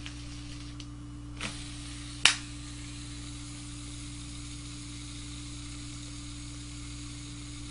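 Shimano Citica 200G6 baitcasting reel: two sharp clicks, the second louder, then a faint steady whir as the spool spins on in free spool on new ceramic bearings.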